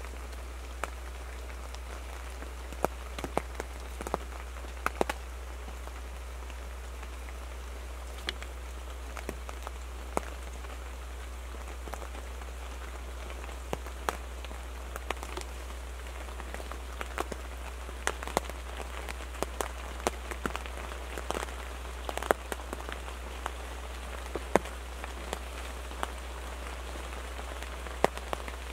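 Rain falling on a photo blind: irregular sharp drop-ticks on the blind itself, close by, over a steady hiss of rain, with a steady low hum underneath.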